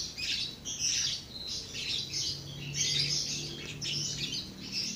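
Many small birds chirping outside, short calls coming quickly and overlapping.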